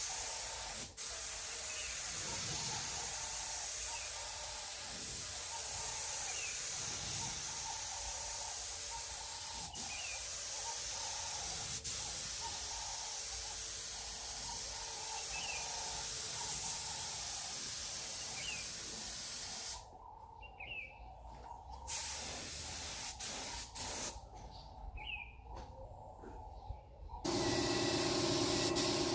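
A steady hiss that cuts out twice for a few seconds near the end, after which a different steady mechanical sound takes over.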